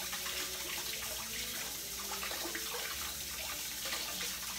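Kitchen tap running steadily into a sink, with hands moving under the water.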